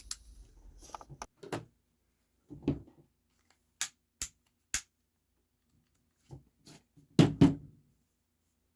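Handling noises from a plastic spring airsoft pistol and its magazine: a few soft knocks, then three sharp clicks about half a second apart, then two louder knocks near the end.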